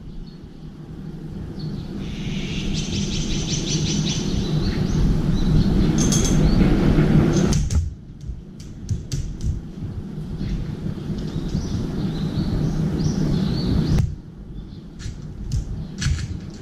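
A steady low rumble of background noise with quick, high bird chirping in the first half. From about halfway on come short sharp clicks and taps as a crow steps about on the steel feeding tray and pecks at a steel bowl of cat food.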